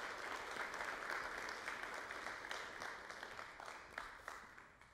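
Congregation applauding, many hands clapping, the applause dying away over the last couple of seconds.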